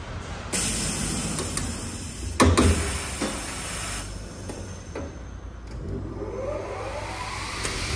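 Pneumatic shutter-louver machine working a stack of louvers: a rush of noise starts about half a second in, with sharp clicks and one loud clunk about two and a half seconds in, and a motor tone rising in pitch near the end.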